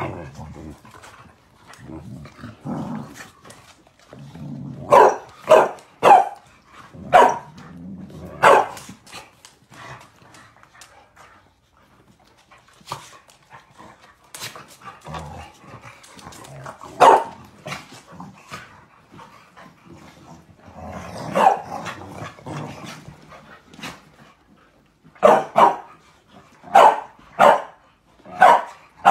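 Several dogs play-fighting, barking in quick runs of sharp barks, a run of about five a few seconds in and another near the end, with low growling between the barks.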